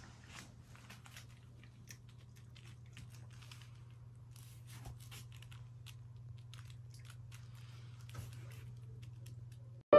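A cat crunching and chewing cat food from a bowl: faint, irregular crunches, most of them in the first few seconds, over a steady low hum.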